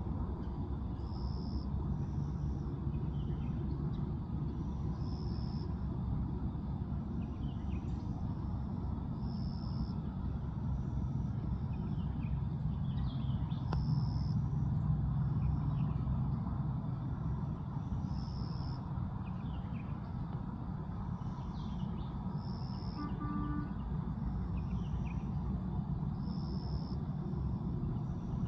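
Woodland ambience: a steady low rumble, like distant traffic, under a small bird repeating a short high call about every two seconds, with faint scattered chirps from other birds.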